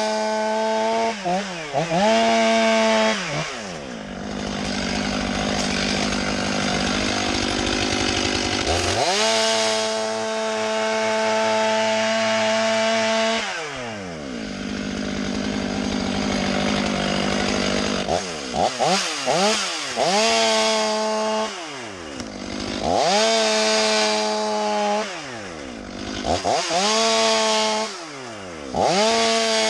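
Chainsaw revving in repeated full-throttle bursts, the longest held about four seconds near the middle, its pitch sliding down each time the throttle is let off, with quick short blips near the end.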